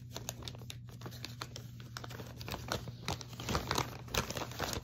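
Plastic mailer bag crinkling and crackling as it is torn open and rummaged through by hand, busiest and loudest in the second half.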